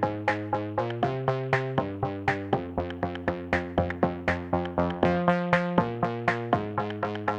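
Background music: electronic synthesizer track with a quick, even beat of short plucked notes, the chord changing about once a second.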